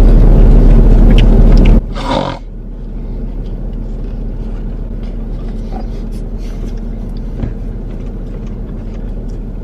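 A loud, even rushing noise cuts off abruptly about two seconds in. After it comes the steady low hum of a car's interior, with the engine running.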